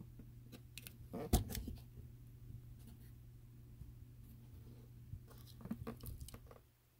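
Light knocks and scrapes of a small wooden model wall, popsicle sticks faced with paper, being handled and turned over. The knocks come in two clusters, the loudest about a second in and another group near the end, over a steady low hum that drops away just before the end.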